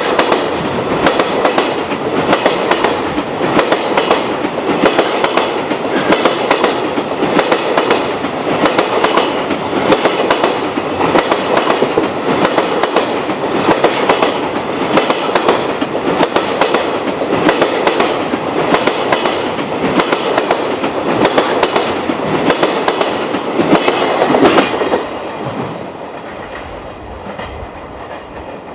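Long freight train rolling past, its wagons' wheels clacking over the rail joints in a steady, fast rhythm over a loud rumble. The sound cuts off suddenly about 25 seconds in, leaving a quieter, duller rumble.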